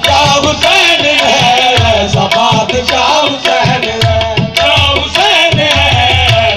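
Qawwali music: a man singing over harmonium and tabla, the tabla's bass strokes keeping a steady beat.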